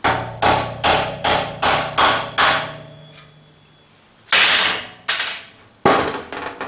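Hammer striking a steel punch set in a machined hollow rivet, forming its flange against an aluminium tray: seven quick ringing taps, about two and a half a second, then three more knocks a second or so apart.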